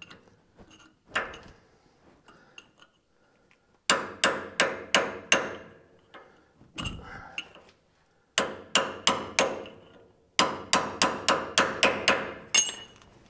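Hammer striking a steel chisel held against a trailer axle's spindle nut and lock washer, bending a washer tang over onto a flat of the nut to lock the bearing adjustment. A single hit comes first, then three runs of quick, sharp metal-on-metal strikes at about three a second, with a few lighter taps between.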